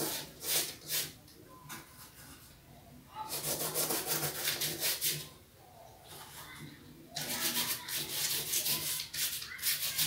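Earth paint made of soil, glue and water being rubbed onto a sheet of paper to paint a tree trunk: a few short scratchy strokes at first, then two long stretches of quick back-and-forth scrubbing, about three seconds in and again from about seven seconds in.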